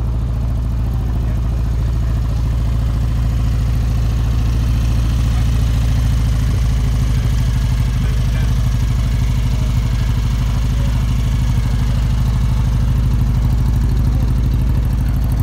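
An engine idling steadily, its low note unbroken throughout.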